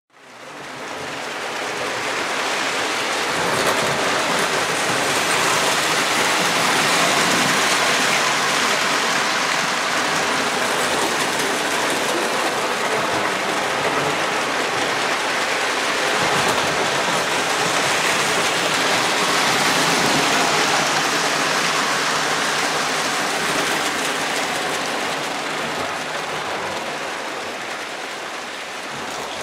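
Lionel O-gauge electric train, a 1960s ALCO diesel set pulling hopper cars, running on the layout's track: a steady rushing rumble of wheels and motor that builds over the first few seconds and eases off slightly near the end.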